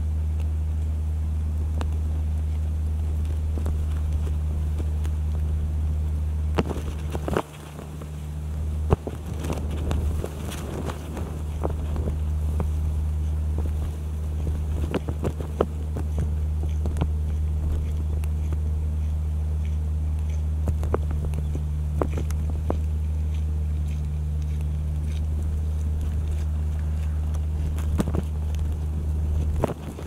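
A steady, loud low drone, broken off briefly about seven seconds in and again near the end, with scattered faint clicks and crackles over it.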